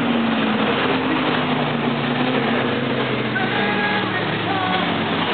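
Cars driving through a bend of a street racing circuit, their engines running over a continuous loud din, with engine tones holding and gliding in pitch as they pass.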